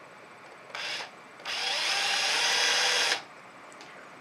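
Cordless drill drilling a small hole into the body of a clarinet for a thumb rest screw. There is a short burst of about a third of a second, then a longer steady run of about a second and a half that stops abruptly.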